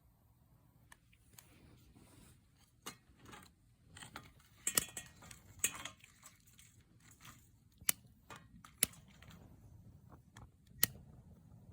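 Wood campfire burning, crackling with sharp, irregular pops.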